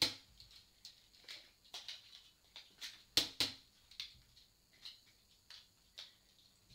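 Plastic toy foam-dart blasters being primed and fired: a sharp snap at the start and two more a quarter second apart about three seconds in, with lighter plastic clicks of handling and cocking between.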